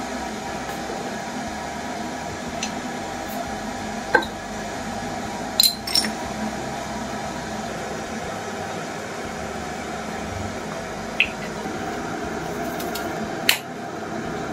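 A steady hum of kitchen background noise, with about five sharp clicks and taps from plastic sauce bottles and their caps being handled over a plate as tomato sauce is poured out.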